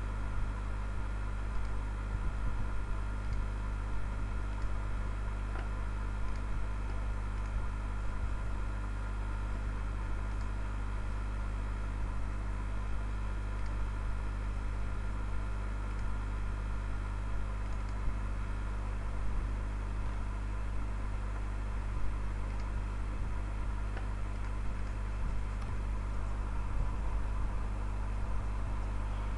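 Steady low electrical hum with a faint hiss, unchanging throughout, with a few faint clicks.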